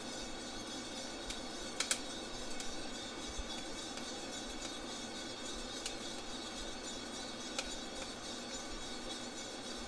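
Feima 100N drum coffee roaster running steadily with its drum, fan and gas burner on high, with a few scattered sharp pops from the beans: the last of first crack during development, before second crack. The loudest is a quick double pop about two seconds in.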